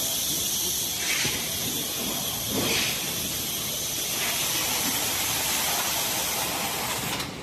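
A steady, loud high-pitched hiss, like compressed air escaping from the packing line's pneumatics, with brief louder surges about one and two and a half seconds in; it cuts off abruptly near the end.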